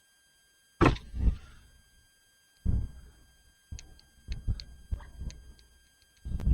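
A string of separate knocks and thuds, about a dozen, with a quicker run of them in the middle.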